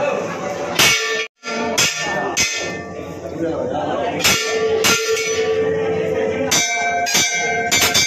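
Large brass temple bells hanging on chains, rung by hand: about eight irregular clangs, each leaving a ringing tone, with bells of different pitches sounding over one another.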